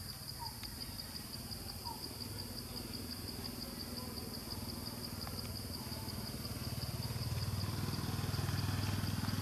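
A small engine running, growing louder over the last few seconds, over a steady high, pulsing insect trill.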